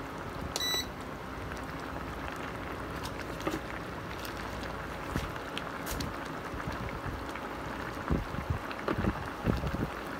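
Chicken adobo sauce boiling uncovered in a pot: a steady bubbling hiss with small pops as the sauce reduces and thickens. A short electronic beep sounds about half a second in.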